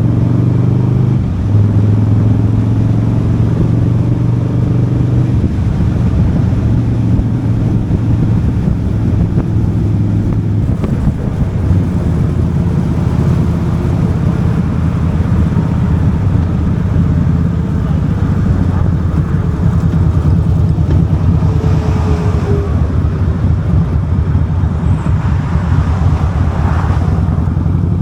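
Harley-Davidson V-twin motorcycle engine running on the road while being ridden. Its low, steady note shifts pitch a few times as the speed changes, over a constant rush of road and wind noise.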